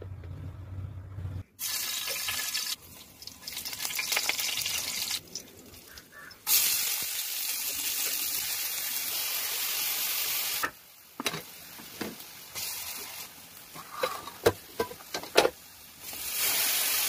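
Sliced shallots and curry leaves sizzling in hot oil in a metal frying pan, a steady hiss in several stretches. In the quieter gaps, a spoon clicks and scrapes against the pan as the mixture is stirred.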